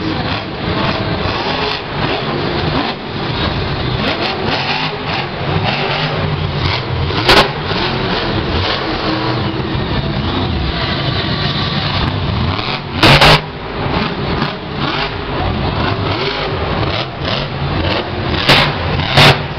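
Grave Digger monster truck's supercharged V8 revving hard and rising and falling as the truck drives and throttles. Several short, loud cracks cut through: one about a third of the way in, one around the middle and two near the end.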